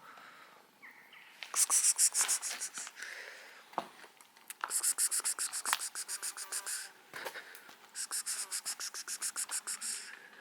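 A cat making three bouts of rapid, rhythmic rasping, about eight strokes a second, each lasting about two seconds. The bouts start about a second and a half in, about four and a half seconds in, and about eight seconds in.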